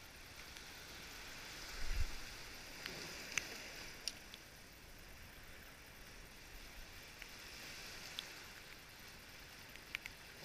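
Small sea waves washing over rocks and pebbles at the water's edge, a steady hiss, with a dull thump about two seconds in and a few light clicks.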